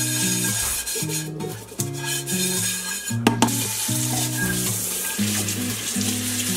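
Dish brush scrubbing a frying pan in a stainless steel sink, then tap water running over the pan as it is rinsed, with a couple of sharp knocks of the pan about three seconds in. Background music with slow low chords plays underneath.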